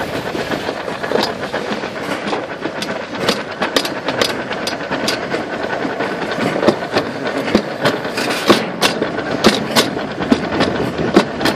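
Toboggan sled rattling and clacking as it runs down its track: a steady rushing noise with a stream of sharp knocks that come thicker in the second half.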